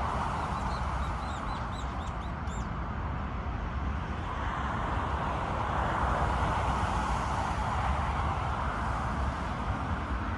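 A bird giving a quick run of short, high chirps during the first two and a half seconds, over a steady rushing noise.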